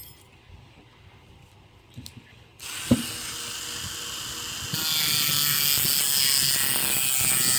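Small high-speed rotary tool cutting through the metal retaining clip on a lock cylinder, a steady high-pitched grinding whine. It starts about two and a half seconds in and gets louder a couple of seconds later as it bites into the clip.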